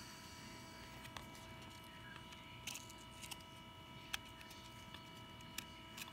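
Faint handling of baseball trading cards, with about six scattered light clicks and flicks as cards are slid and turned over, the sharpest about four seconds in. A faint steady hum sits underneath.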